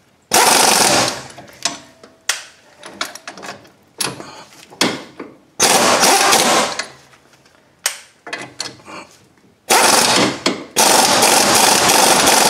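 Pneumatic impact wrench hammering in three bursts, the last and longest starting near the end, working the rusted top nut off a sway bar end link whose stud is held with vise grips. Short clicks and rattles come between the bursts.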